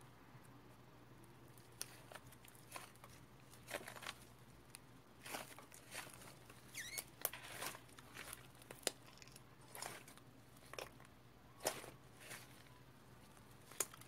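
White slime being stretched and squeezed by hand, giving irregular sticky crackles and small pops. It starts after a quiet second or two, with a short squeak near the middle.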